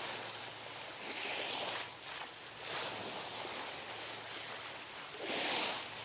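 Sea water rushing and splashing along the hull of a moving trawler, surging louder several times and most strongly near the end, with a faint low steady hum underneath.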